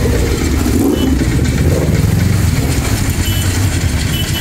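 Tractor and motorcycle engines running as they pass close by: a steady, deep rumble, with a motorcycle engine note rising and falling in the first two seconds.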